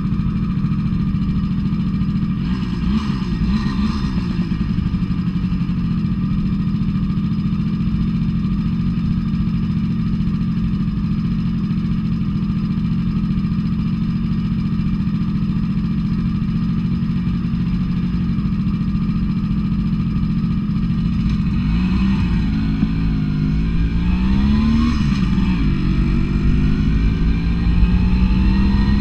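Romet Ogar 200 moped's 50 cc two-stroke Jawa 223 engine idling steadily for about twenty seconds, then revving as the moped pulls away: the pitch rises, drops at a gear change and rises again near the end.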